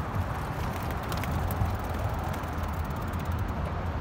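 Steady outdoor background noise: a low, uneven rumble with a hiss above it and a few faint clicks.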